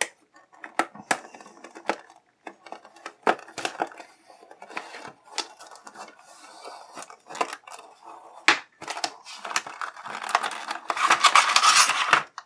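Hobby knife cutting around the clear plastic blister of a carded action figure: scattered sharp clicks and crackles of the stiff plastic. Over the last few seconds the loosened blister and tray are pulled free with a louder, continuous crinkling rustle.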